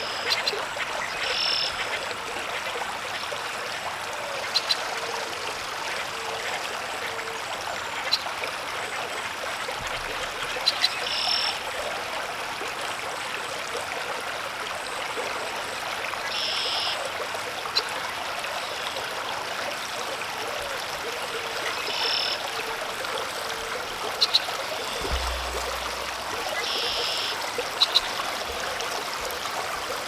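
Pond ambience: a steady rushing hiss, with runs of short, low frog croaks a few seconds in and again past the middle, and several brief, high, buzzy calls spaced every few seconds.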